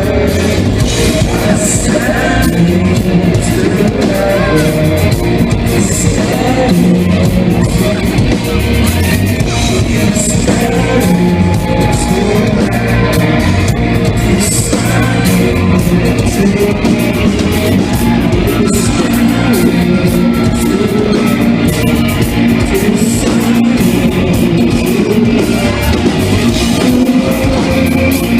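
Live rock band playing loud, heavy music: distorted electric guitars, bass and drums with cymbal crashes every few seconds, under a sung vocal line.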